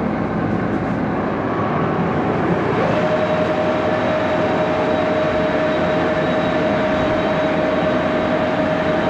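Axelson engine lathe running at about 628 RPM, with steady mechanical noise from the spindle and gearing. Just under three seconds in, a whine rises in pitch and then holds steady.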